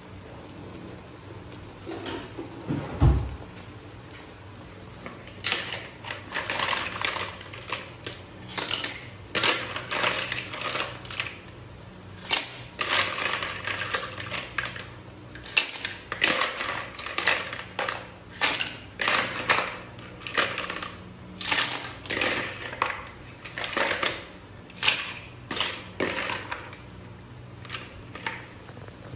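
Raw batik clams (undulated surf clams) tipped from a bowl into a steel wok of sauce: their shells clatter against each other and the wok in uneven bursts, about one a second. There is a single knock about three seconds in.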